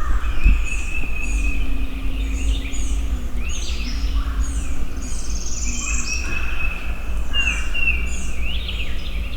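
Several songbirds singing at once: repeated high chirps and trills over long, steady whistled notes, some held for a second or more. A constant low rumble runs underneath.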